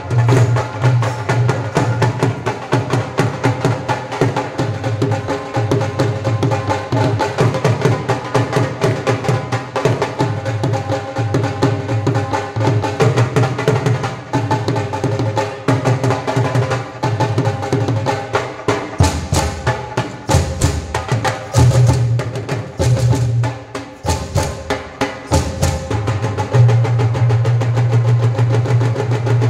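Punjabi folk instrumental ensemble playing: dhol and dholki drumming and clacking wooden sapp clappers over a held wind-instrument melody and a steady low drone. The drone drops out in short breaks about two thirds of the way through, leaving the percussion.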